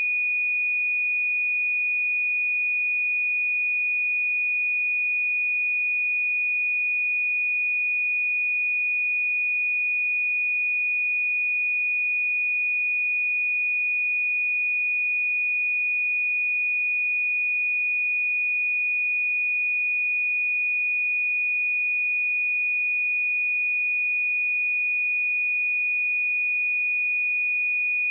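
A pure 2464 Hz sine-wave test tone, held at one steady pitch and level.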